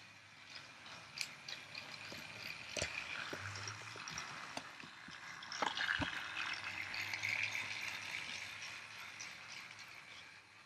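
Battery-powered Trackmaster Spencer toy train running on plastic track: a motor whir with rattling clicks over the track joints, growing louder to a peak about six seconds in as it comes closer, then fading as it moves away.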